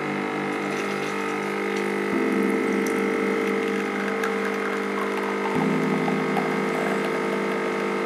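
ACA-ES12A espresso machine's vibration pump humming steadily as it pushes water through the coffee puck while brewing a shot. Its tone shifts slightly about two seconds in and again about five and a half seconds in.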